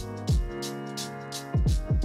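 Background electronic music: deep kick drums that drop in pitch and crisp high hits over held chords.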